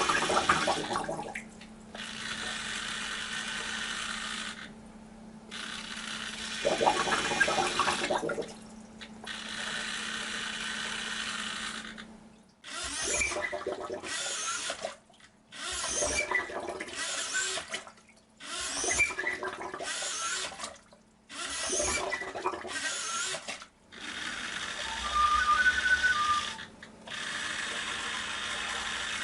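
DIY mechanical ventilator running: a hobby RC servo swings a lever arm and push-rod that squeeze a plastic bottle, with air through its valves. The cycle repeats every three to four seconds, each stroke one mechanical breath.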